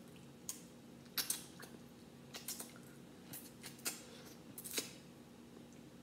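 Crab shell being cracked and picked apart by hand: a string of irregular sharp cracks and snaps, about a dozen, mostly in the first five seconds.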